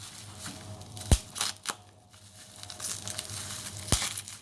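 Packaging being handled and crinkled, with two sharp knocks, about a second in and near the end.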